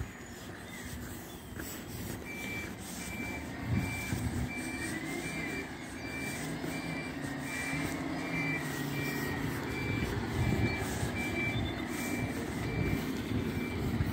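Refuse collection lorry's reversing alarm beeping rapidly and regularly, starting about two seconds in, over the lorry's diesel engine running as it backs around a corner.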